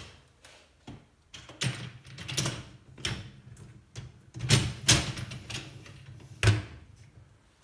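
Bosch dishwasher's wire baskets being put back in and slid on their rails: a series of about seven sharp clacks and rattles of the metal rack, the last one near the end among the loudest.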